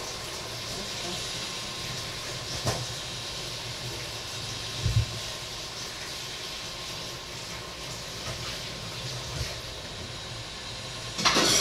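A steady hiss, with a couple of soft knocks of kitchen items being handled and a louder clatter near the end.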